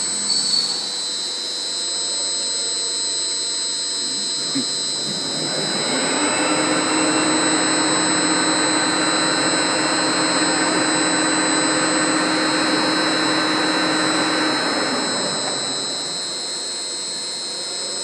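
Industrial machine tool working a large metal ring, with a steady high whine throughout. About six seconds in, a louder hissing roar with a low hum swells up as the tool cuts, holds, and dies back down a few seconds before the end.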